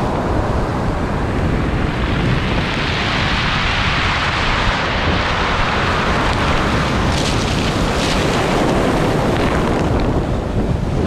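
Sea surf washing onto the shore, swelling a few seconds in and easing off again, with wind noise on the microphone.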